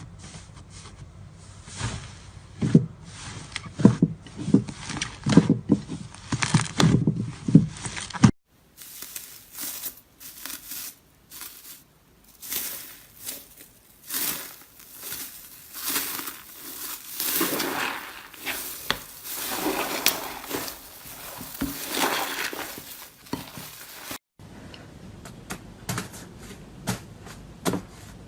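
Slime being squeezed, stretched and poked by hand, giving irregular sticky clicks, crackles and pops. Three separate clips are spliced together, with abrupt cuts about 8 seconds and 24 seconds in.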